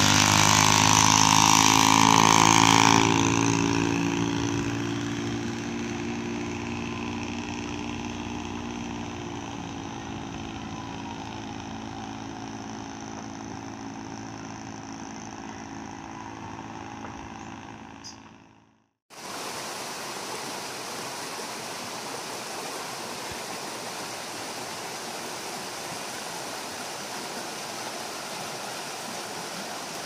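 An outrigger boat's engine running as the boat pulls away, loud at first and then fading steadily with distance. About 19 seconds in, this cuts off and a steady rush of a stream takes over.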